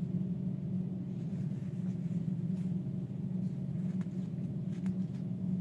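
Steady low hum of room noise, with a few faint clicks.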